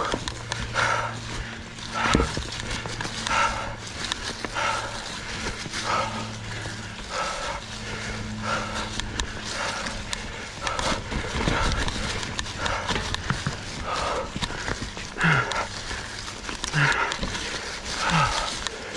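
Mountain biker breathing hard and rhythmically, about one heavy breath every second or so, with a few knocks from the bike over rocks.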